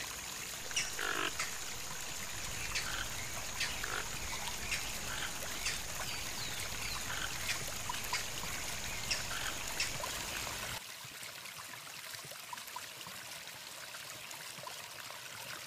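Toco toucans calling with short, croaking grunts about once a second, over a steady high-pitched whine. About eleven seconds in this cuts off abruptly and gives way to a fainter, even rushing noise.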